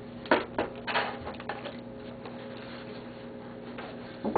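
Several light knocks and clicks of objects being handled, bunched in the first second and a half, then only a steady low hum.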